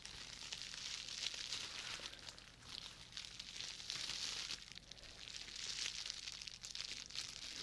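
Plastic bubble wrap being handled, crinkling and crackling in several swells that rise and fall.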